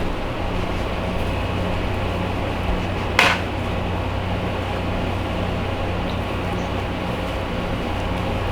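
Steady low mechanical hum, like a fan or motor running, with one brief sharp noise about three seconds in.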